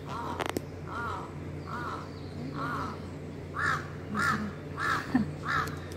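A crow cawing over and over, about eight caws, each rising and falling in pitch, coming faster and louder in the second half. A steady low hum runs underneath.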